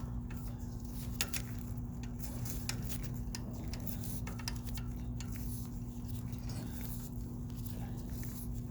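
Scattered light metallic clicks of a tool turning the trip latch adjustment screw on a GE AKR-30/50 circuit breaker, over a steady electrical hum.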